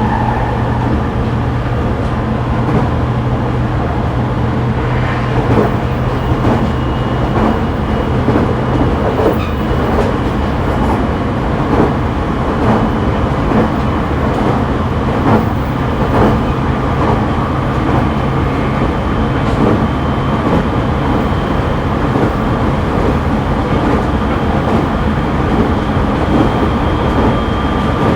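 Interior running noise of a JR East E501-series electric train's motor car in motion: a steady low rumble with wheels clacking irregularly over rail joints. A faint high whine slowly rises in pitch across the stretch.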